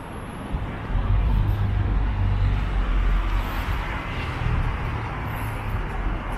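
City street traffic: cars driving past close by on the avenue, with a low engine rumble that swells about a second in and holds.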